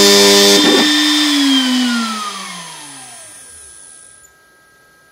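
Desktop CNC router's high-speed spindle spinning down after switch-off: a steady whine, a click just under a second in, then its several pitches fall together over about three seconds and fade to a faint hum.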